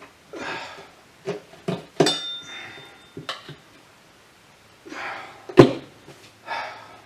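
Steel tire irons clanking against a motorcycle wheel rim and tire while a stiff tire is levered on by hand. A few sharp metal knocks, one about two seconds in that rings on briefly, and the loudest knock a little past halfway.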